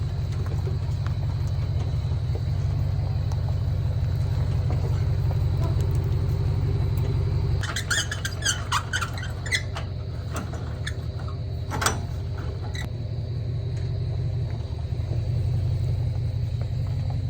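An engine idling steadily, with a quick run of metallic clinks and rattles about eight seconds in and a single sharp clank about twelve seconds in.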